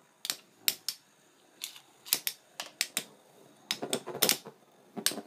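Metal-wheeled Beyblade tops spinning and clacking against each other and the stadium wall in a battle: sharp clicks at irregular intervals, coming thicker and faster for about a second after the midpoint and again near the end.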